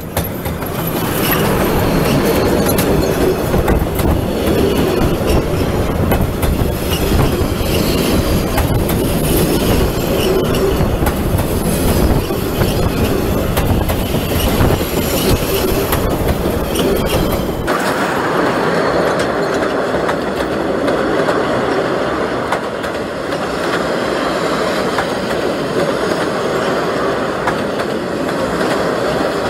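Steam-hauled passenger train passing close by: the Tk3 'Pikku-Jumbo' steam locomotive and then its carriages rolling over the rails, loud and steady. About two-thirds of the way through the sound changes abruptly and loses most of its deep rumble.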